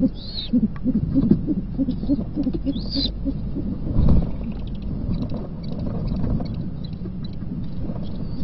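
Great horned owls hooting at the nest in a quick series of low, soft notes, with a few short, high squealing calls mixed in. About four seconds in there is a thump of wings as one owl flaps close by.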